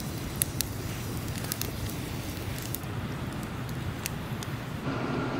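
Wood campfire burning in a metal fire ring, crackling with scattered sharp pops over a steady low hum. A steady higher hum joins near the end.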